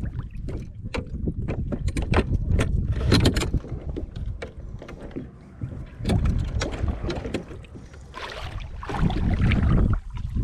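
Repeated sharp knocks and clicks against a kayak, over a low rumble of wind on the microphone.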